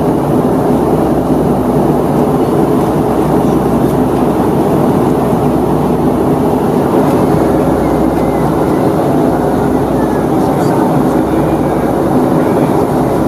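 Steady cabin noise inside a Boeing 757-200 airliner at cruise: an even, unbroken rush of airflow over the fuselage with the drone of its Rolls-Royce RB211 engines underneath.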